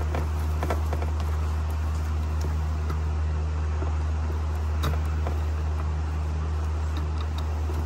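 Steady low machine hum, with a few faint clicks and rustles of plastic as the door panel's switch wiring plugs are worked into place by feel.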